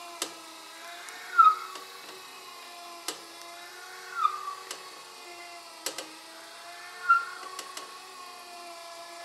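Home-built copy milling machine running while it cuts a wooden lure blank: a steady motor whine, with a short squeal and a sharp click that each come back about every three seconds.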